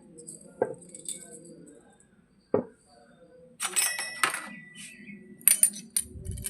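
Miniature toy kitchen pieces being handled: two soft knocks, then a busy spell of small clinks with a brief ringing tone, and a few light sharp taps near the end.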